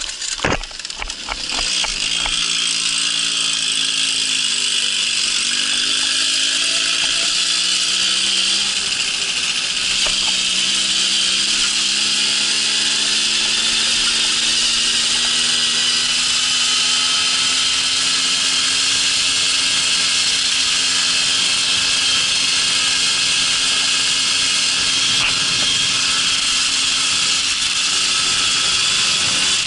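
Babetta moped's small 50 cc two-stroke engine running under way, its pitch rising and falling over the first ten seconds and then holding steady, over a strong rushing hiss.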